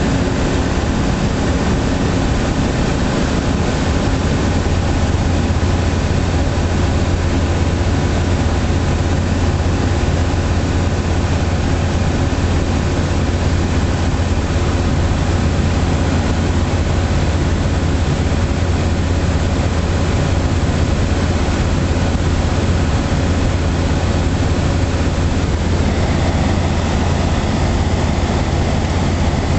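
Light aircraft's engine and propeller droning steadily, heard from on board in flight.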